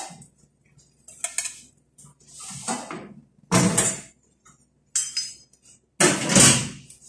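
A frying pan and metal cooking utensils clattering on a gas stove as they are handled and set down: a series of separate scrapes and knocks, the loudest about three and a half and six seconds in.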